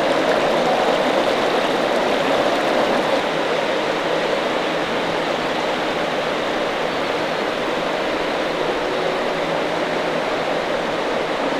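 Creek water rushing steadily, an even, unbroken noise.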